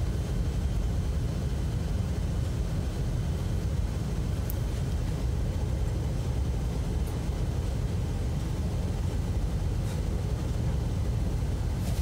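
Steady low background rumble at an even level, with a few faint clicks spread through it.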